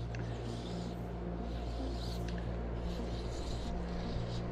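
Steady low background noise with a low hum, and a few faint, brief high chirps.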